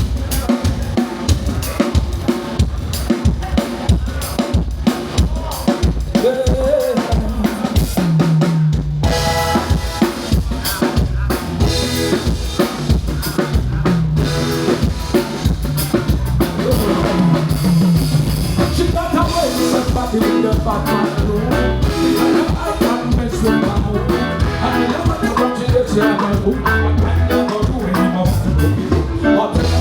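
Live band music at a sound check: a drum kit keeps a steady groove of kick, snare and rimshots over bass, and more instruments come in about nine seconds in, filling out the band sound.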